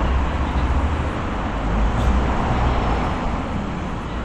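Steady city street noise with a continuous low traffic rumble and no distinct events.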